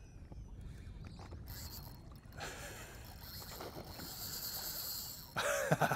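Wind rumbling on the microphone over sloshing shallow water. From about a second and a half in there is a steady high hiss with a faint buzz, and a voice starts near the end.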